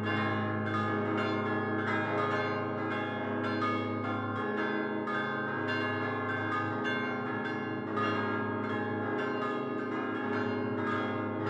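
Church bells of St Andrew's parish church, Luqa, cast by Prospero Barigozzi of Milan in 1928, rung in a solemn peal. The bells hang fixed, and hand-swung clappers strike them in a rapid, unbroken stream of overlapping strikes with long ringing tones. The deepest hum drops away about four seconds in and comes back near the end.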